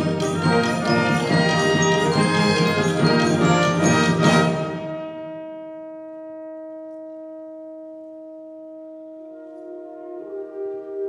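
School concert band of woodwinds, brass and percussion playing a loud full-band passage that ends on a sharp accent about four seconds in. The band then drops to a soft held chord, and near the end softer wind parts enter with moving notes.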